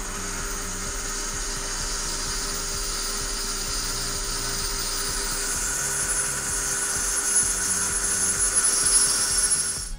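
Metal lathe running as a twist drill and then a boring bar cut into the bore of a spinning brass tube: a steady motor hum under a high, hissing cutting noise that grows louder toward the end.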